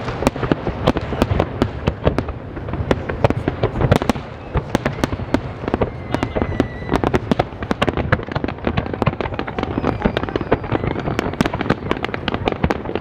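Fireworks display: a continuous barrage of sharp bangs and crackles, several reports a second, with no pause.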